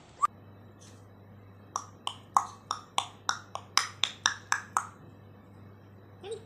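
African grey parrot making a run of about a dozen sharp clicks, roughly three or four a second, each click carrying a short pitched pop.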